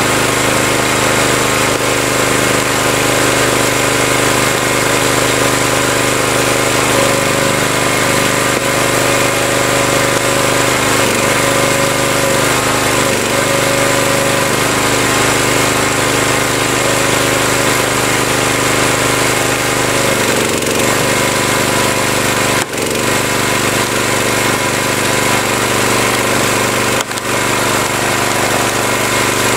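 Small gas engine of a wood splitter running steadily, its pitch shifting slightly a few times, with two brief dips near the end.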